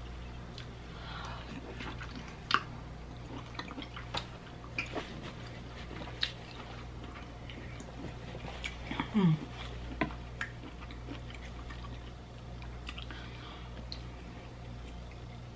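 Close-up eating sounds of a person chewing seafood-boil shrimp and lobster, with scattered wet clicks and lip smacks. A brief low rising vocal sound comes about nine seconds in, over a steady low background hum.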